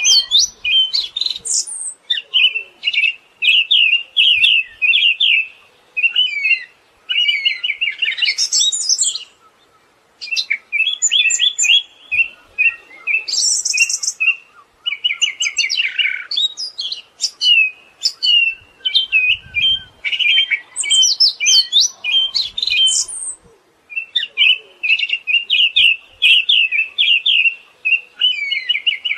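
Siberian thrush singing a long, varied song of rapid trilled and chattering phrases with sharp higher whistles, broken by short pauses of about a second.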